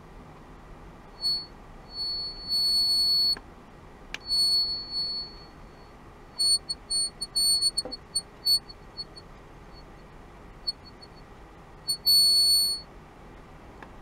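Handheld ultrasonic device giving off a high-pitched electronic tone that switches on and off irregularly while it is pressed to a test strip: a few long holds of about a second, short blips and quick stuttering runs.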